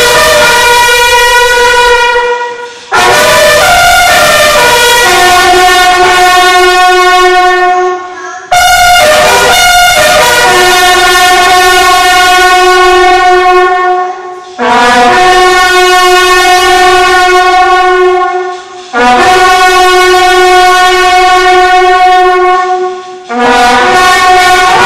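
Several bugles playing together in unison, long held notes in phrases broken by five short pauses for breath.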